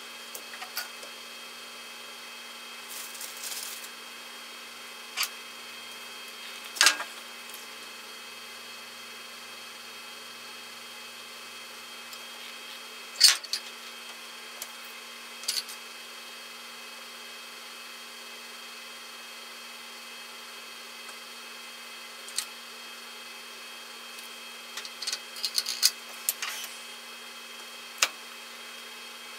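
Scattered clicks, taps and brief rustles of small hand tools and parts being picked up and set down on a workbench, the sharpest about 7 and 13 seconds in and a quick cluster near the end, over a steady electrical hum.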